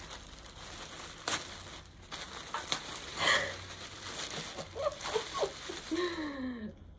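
Clear plastic bag crinkling and rustling with irregular crackles as a plush toy is worked out of it. In the last couple of seconds a voice makes excited wordless sounds that slide up and down in pitch.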